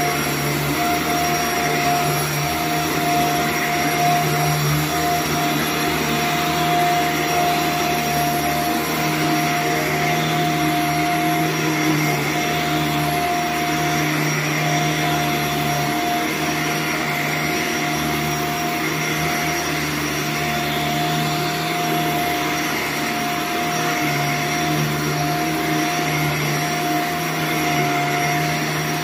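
Vacuum motor of rug-cleaning equipment running steadily, a constant hum with an airy rush over it.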